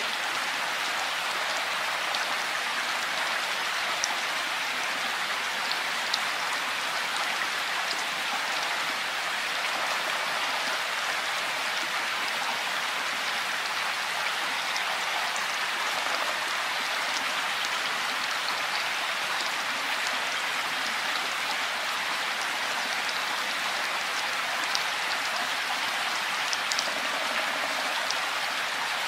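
Steady rain falling, with the occasional louder drop ticking out of the even hiss.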